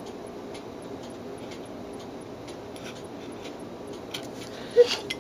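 A clock ticking steadily, about two ticks a second, over a steady low room hum. A single sharp clink near the end.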